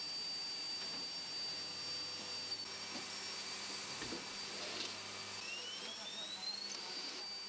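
Faint electric whine of an automatic spacer-profile processing machine feeding the profile from its magazine: steady high tones, a low hum partway through, and a whine rising in pitch near the end, with a few faint ticks.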